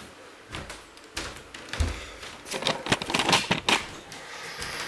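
Belongings being handled and packed into a box: irregular rustling, clicks and clattering knocks, with a dull thump about two seconds in.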